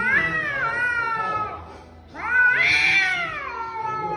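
A cat yowling at another cat: two long, wavering drawn-out calls, the second, about two seconds in, louder and rising then falling in pitch.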